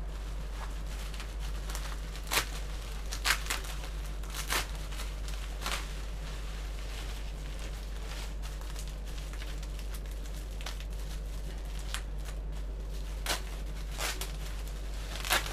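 Plastic bubble wrap crinkling and rustling as bubble-wrapped parts are handled and pulled out of a cardboard box, with scattered sharp crackles at uneven intervals.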